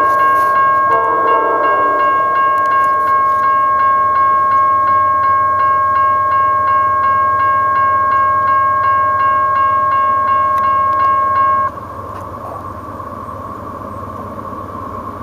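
A bell-like chime dings about two and a half times a second over its own steady ringing tone, then cuts off abruptly near the twelve-second mark, leaving a low rumble. A distant CSX AC44CW locomotive horn sounds one short blast about a second in.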